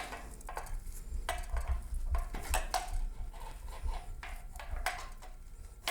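Metal parts of a Tremec T-45 transmission shifter clicking and clinking as they are handled and fitted together by hand, with scattered light knocks.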